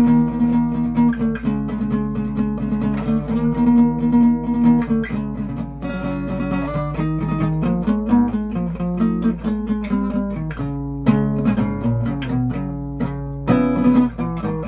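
Acoustic guitar played solo as an improvised piece: chords held and ringing for the first few seconds, then a run of quicker picked notes and chord changes from about six seconds in.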